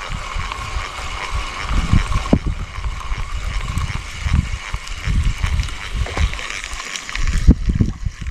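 Wind buffeting the microphone in gusts, over the steady whir of a spinning reel being cranked to retrieve a spoon lure.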